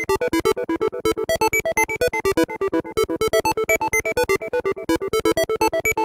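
A single-oscillator synth voice in an ESP8266-driven sound sculpture, run through a delay, plays a generative arpeggio in just intonation. The notes are short and come about eight a second, with the pitch stepping between a few tones.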